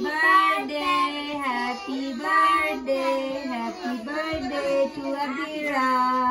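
Children singing the birthday song together, in held notes that step up and down, with a woman's voice among them.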